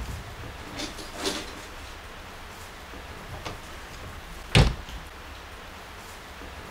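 A single sharp knock about four and a half seconds in, over quiet room tone, with a few fainter knocks earlier.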